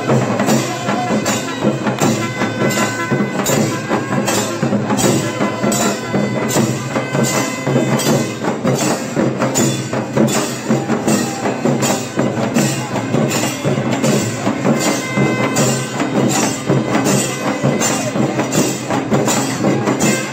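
Music with a steady percussion beat, about two strikes a second, under sustained tones.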